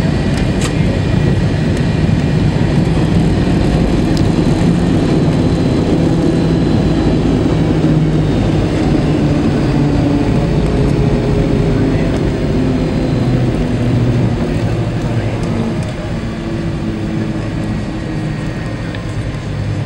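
MD-80 airliner's cabin noise during the landing rollout: a loud, steady rumble of the rear-mounted Pratt & Whitney JT8D engines and the wheels on the runway, with engine tones falling slowly in pitch and the noise easing off about fifteen seconds in as the aircraft slows.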